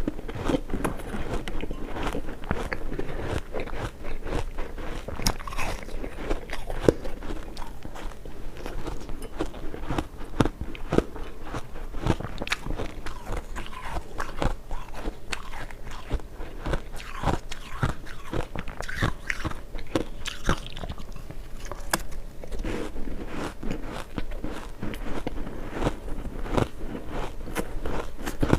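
Close-up biting and chewing of hard refrozen ice chunks: a dense, irregular run of sharp crunches and cracks.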